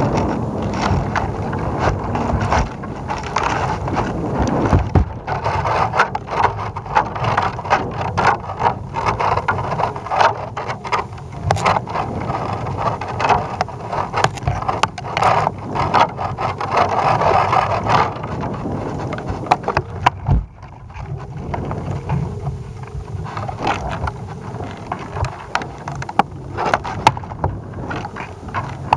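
Wind buffeting the microphone of a balloon-tethered camera rig, with many irregular knocks and scrapes as the rig swings and rubs on its line. There is a brief lull about two-thirds of the way through.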